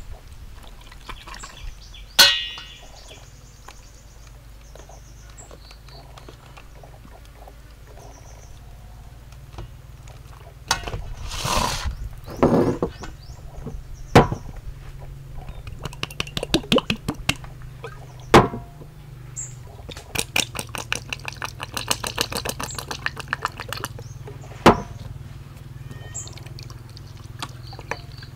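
Food-preparation handling sounds: a few separate sharp knocks of a spoon, bottle and jars against a steel bowl and table, the loudest about two seconds in, a short pour of liquid a little before the middle, and runs of quick rattling ticks in the second half, over a low steady hum.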